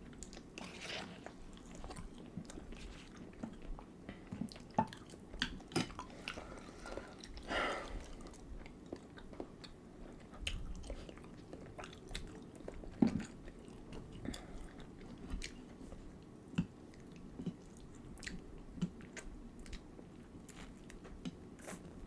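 Close-up eating sounds: chewing, wet mouth smacks and bites into chicken wings and pasta, with scattered sharp clicks, the loudest about thirteen seconds in.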